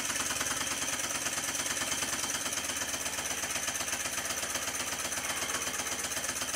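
Stuart No. 10V model steam engine running on compressed air: a rapid, even exhaust beat over a steady air hiss. It runs quietly now that its main bearings are shimmed and bolted down tight to the sole plate.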